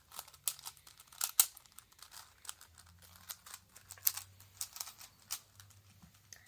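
Plastic Megaminx puzzle being turned by hand: a quick, irregular run of clicks and clacks as its faces snap round, with a few sharper clacks about a second and a half in.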